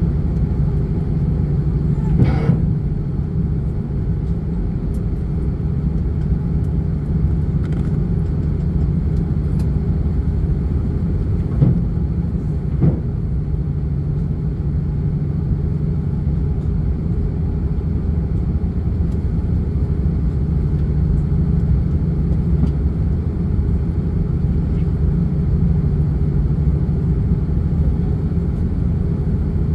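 Airbus A330neo cabin noise while taxiing after landing: a steady low rumble of the engines at idle, with a few brief knocks about two seconds in and twice around twelve seconds in.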